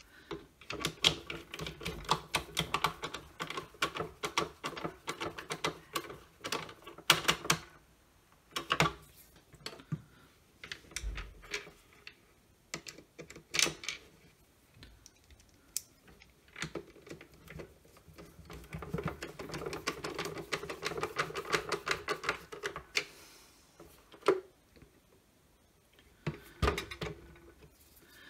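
Screws being driven into the plastic housing of a Milwaukee M18CV hand vacuum with a hand screwdriver: two long runs of fast clicking, the first ending about eight seconds in and the second starting a little past halfway, with a few single knocks in between and near the end.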